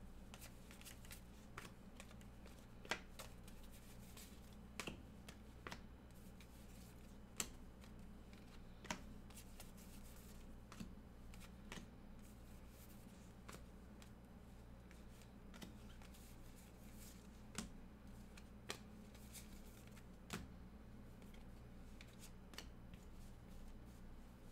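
A stack of 2024 Bowman baseball cards being flipped through by hand, one card at a time: faint, irregular clicks and snaps of card edges about every second, a few louder than the rest. A low, steady hum runs underneath.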